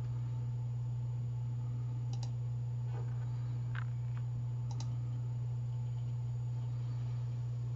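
Four computer mouse clicks, roughly a second apart, over a steady low hum.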